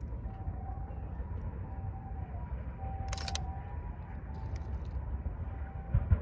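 Fireworks starmine display heard from afar as a steady low rumble of launches and bursts, with faint whistling tones and a sharp click about three seconds in; heavier booms begin right at the end.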